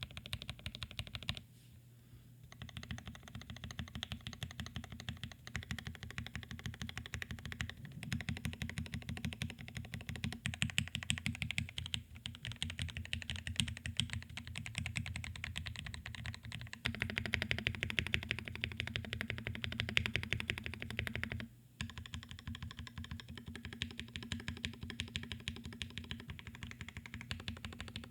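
Fast, continuous typing on a custom NEO Keys Palette G67 mechanical keyboard with an acrylic case, carbon fiber plate, lubed and filmed Gateron Black Ink v2 linear switches and GMK keycaps. The keystrokes run thick and rapid, with short pauses about two seconds in and again a little after twenty seconds.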